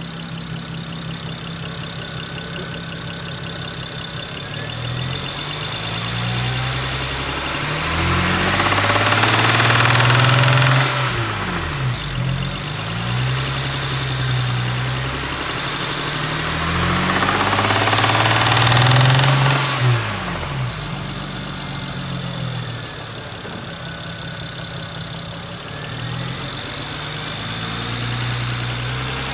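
Car engine idling with rod knock, revved up twice and let fall back to idle. The knock comes from a spun connecting-rod bearing.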